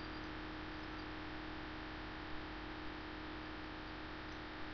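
Steady electrical hum with even hiss from the recording microphone, and two or three faint short clicks.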